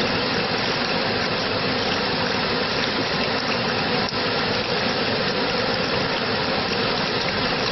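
Water rushing steadily in an even, unbroken wash of sound.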